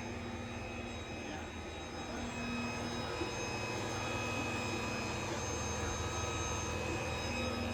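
Creality CR-10S 3D printer running, its stepper motors whining in several steady tones over the hum of its cooling fans, with one of the lower tones cutting out and coming back a few times as the moves change.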